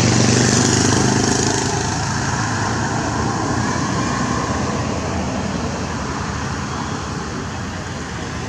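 Steady outdoor background noise like distant road traffic, with a low engine hum strongest in the first second or so before it eases off.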